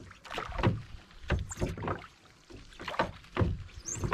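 Water slapping and lapping against the side of a wooden boat's hull in irregular splashes, one every half second to a second.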